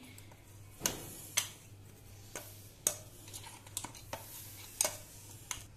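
Ground spice powder poured and tapped out of a mixer-grinder jar into a glass bowl: a faint pouring hiss with about half a dozen sharp clicks and taps of the jar against the bowl.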